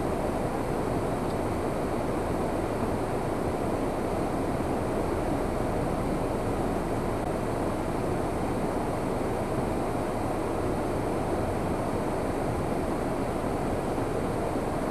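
Steady rushing noise, even throughout with no distinct events.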